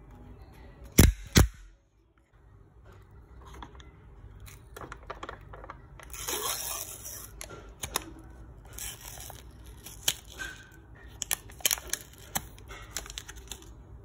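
Paper inner seal being peeled and torn off the glass rim of a new instant coffee jar: scratchy tearing with small clicks, loudest about six to seven seconds in. Two sharp knocks about a second in.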